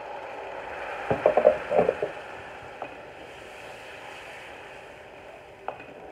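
Water poured into a hot frying pan of fried onion and spice masala, hissing and bubbling in the oil. A wooden spatula knocks and scrapes against the pan in a quick run of clicks about a second in as the mixture is stirred, with a few single knocks later.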